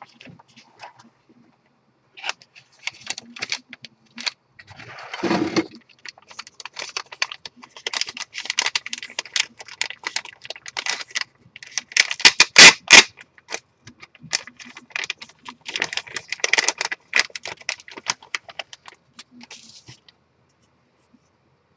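Crinkling and rustling of an anti-static bag being handled and opened to take out a PCI wireless network card, in irregular crackly bursts, loudest about midway. A short rubbing scrape of packaging comes about five seconds in.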